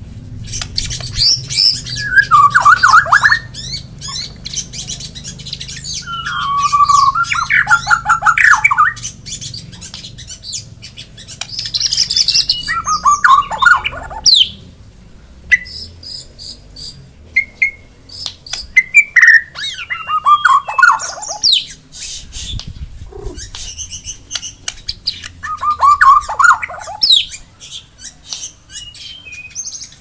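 White-rumped shama singing: about five bursts of rich, warbling whistled phrases a few seconds apart, with sharp ticking chip notes in between.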